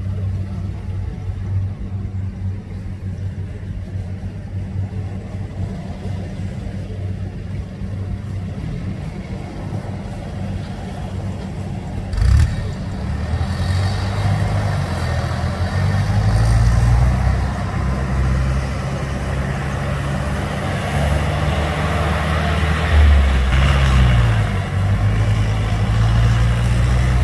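Diesel engine of a Kubota DC70 rice combine harvester running steadily under load as it cuts. A sharp knock comes about twelve seconds in. The engine then grows louder as the machine comes nearer, and its note shifts up and down a few times.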